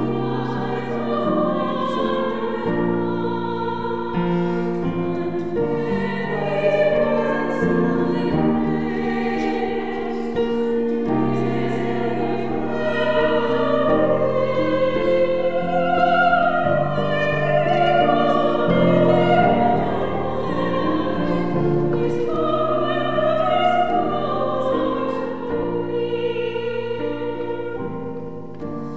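A church anthem sung by two singers in long held lines, with musical accompaniment.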